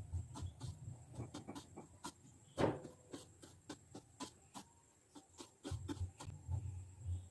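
Light, irregular clicks and taps of a metal spoon stirring potassium permanganate crystals and glycerin on a steel plate, with a slightly louder knock about two and a half seconds in.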